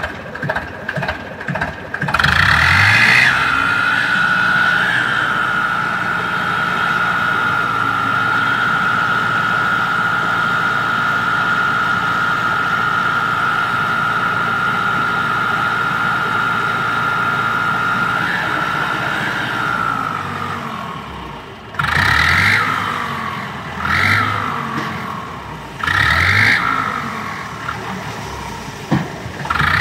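Mahindra 595 Turbo tractor engine revving up about two seconds in and held at high revs with a steady high whine for some fifteen seconds while its hydraulics tip the loaded trolley. It then drops back, and near the end is revved up and down about every two seconds.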